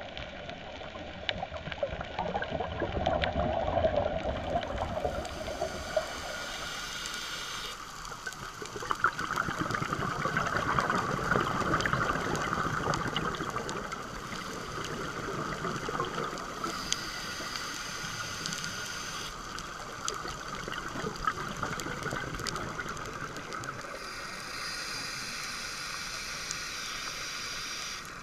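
Underwater sound picked up by a GoPro Hero 3 in its housing: muffled rushing and bubbling water with scattered small clicks. It swells louder twice, and its character shifts abruptly several times.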